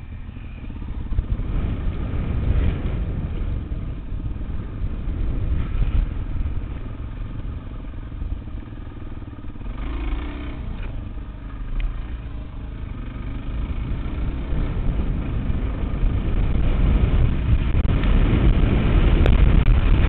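Dual-sport motorcycle's engine running while riding over rough off-road ground, growing louder over the last few seconds as the bike picks up speed.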